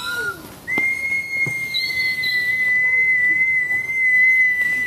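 A whistle blown on one long, steady high note, starting just under a second in and dipping slightly in pitch as it fades near the end. It is a sound effect for the human cannonball's flight after the launch countdown.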